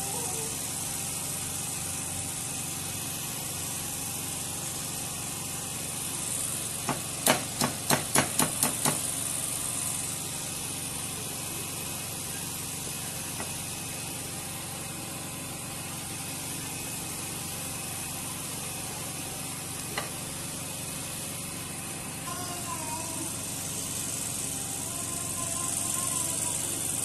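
A wire whisk beating cake batter in a mixing bowl over a steady hiss. About seven seconds in, the whisk strikes the bowl in a quick run of about eight sharp knocks, and it knocks once more about twenty seconds in.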